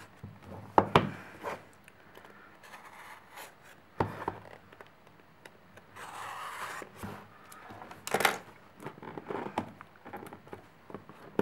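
A cardboard phone box being handled and opened: scraping and rubbing of the box and its packaging, with several sharp knocks and a short rustling slide about two-thirds through.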